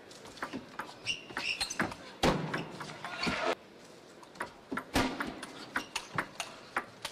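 Table tennis ball clicking back and forth between bats and table in a rally, a sharp tock every quarter to half second. A short burst of crowd noise comes in about two seconds in and cuts off suddenly about a second and a half later.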